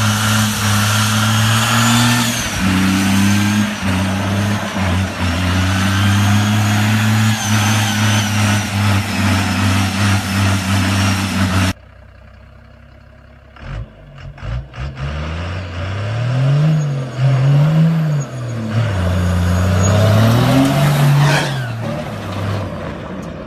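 Old rat rod pickup engines through loud exhaust. First one held at steady high revs while its tyres spin; then, after an abrupt cut to a quieter stretch, another truck's engine revs up and down several times, loudest shortly before the end as it launches in a dusty burnout.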